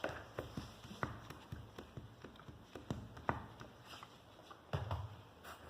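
Irregular clicks and taps of a utensil stirring thick glue-and-talc slime in a container, with a dull thump a little before the end.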